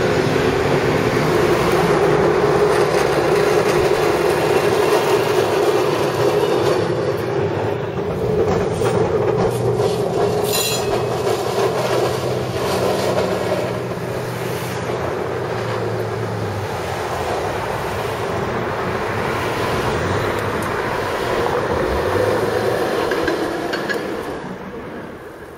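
Heritage streetcar running past on street rails, a steady hum and rumble mixed with passing car traffic. A brief high-pitched squeal comes about ten seconds in, and the sound fades near the end.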